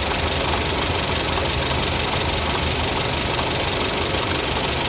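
2012 Honda Civic EX's 1.8-litre four-cylinder engine idling steadily with the air conditioning running. The noise that sometimes comes with the AC is not clearly heard.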